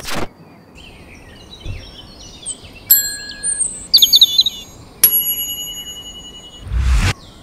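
Edited sound effects: a brief whoosh, then bell-like dings that strike and ring away, about 3 and 5 seconds in, with bird chirps between them, and a second whoosh with a low rumble near the end.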